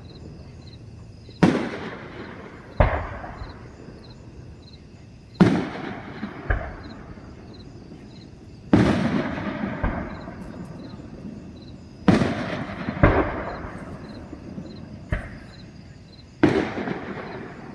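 Aerial fireworks going off: about ten separate booms at irregular intervals, some in pairs about a second apart, each trailing off in a long echoing rumble.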